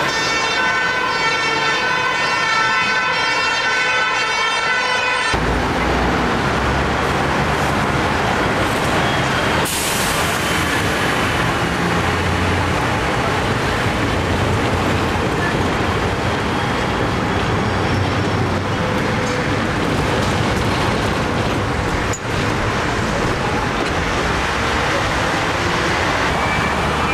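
Hong Kong double-deck electric tram running on street track, heard from on board: a steady rumble and rattle of the car amid road traffic. For the first five seconds a steady whine of several high tones sounds, then stops abruptly and the low rumble takes over.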